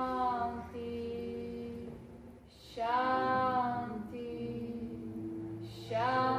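A woman chanting a mantra in a slow, sustained sung voice. Each held phrase lasts two to three seconds and steps between a few pitches, and a new phrase begins about every three seconds.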